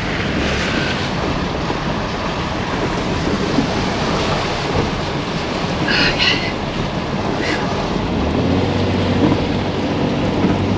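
Vehicle driving through a shallow river ford and up a rough dirt track, heard from inside the cabin: a steady rumble of tyres churning through water and gravel. A steady engine hum comes up from about eight seconds in.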